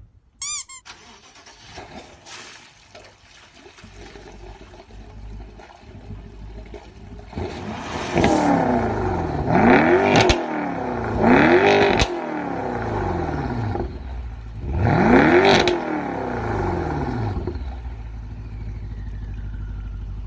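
BMW 6 Series Gran Coupé engine blipped four times from idle, rising and falling each time, while it blows water out of its quad exhaust tips. A short whoosh sound effect comes about half a second in.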